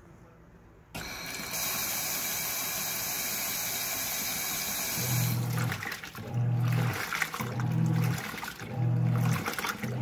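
Giantex portable washing machine in its wash cycle: a steady rush of water starts about a second in, then halfway through the motor begins humming in short pulses about once a second as the load sloshes in the tub.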